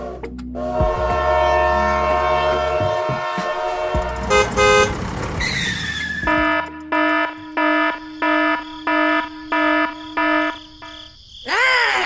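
A vehicle horn honks in a quick, even series of about seven blasts, a little over one a second. Before that comes a steady multi-tone hum with a few short toots, and a brief sliding cartoon-style sound effect falls at the end.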